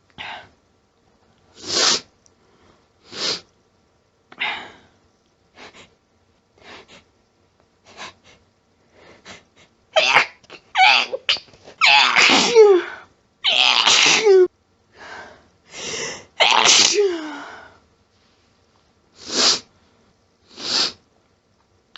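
A person's sneezing fit: a run of short, sharp sneezes and catching breaths a second or so apart, building to a cluster of louder, harsh, throaty sneezes about halfway through, then two more single sneezes near the end. The fit is set off by a nasal tickle that will not stop.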